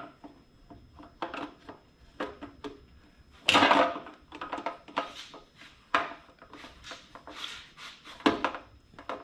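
A metal removal tool knocking, clinking and scraping against the fuel pump lock ring on a Harley-Davidson fuel tank as the ring is worked loose: a series of short irregular knocks, the loudest a little over three seconds in.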